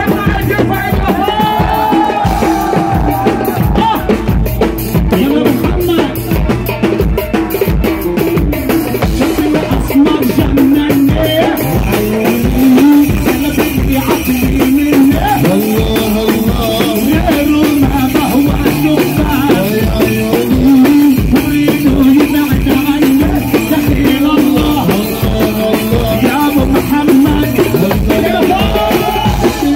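Loud live Arabic party music over a PA: a male singer on microphone with a steady drum beat.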